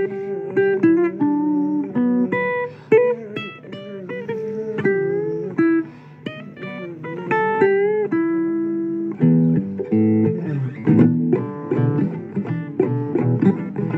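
Blues guitar playing an instrumental break: single picked notes with bent, sliding pitches, turning into faster, denser picking of notes and chords about nine seconds in.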